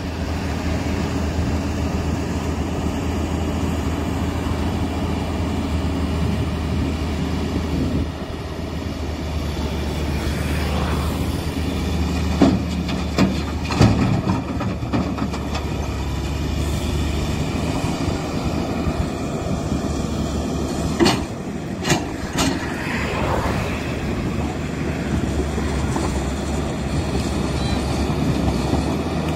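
Diesel engines of a Tata Hitachi crawler excavator and a tipper truck running steadily with a low rumble. About midway, sharp clattering knocks as stones from the excavator bucket are dumped into the truck's bed, and more sharp knocks later as the bucket works into a heap of stones.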